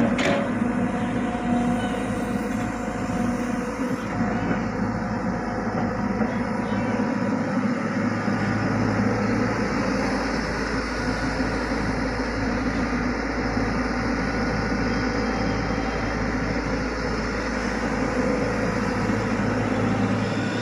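Tata Hitachi excavator's diesel engine running steadily under work, with a short sharp clank at the very start.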